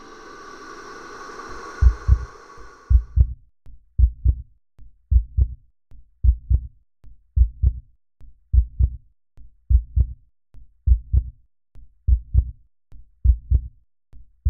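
A heartbeat sound effect: slow, regular low double thumps, lub-dub, a little slower than one beat a second. It starts about two seconds in as a sustained musical tone fades away.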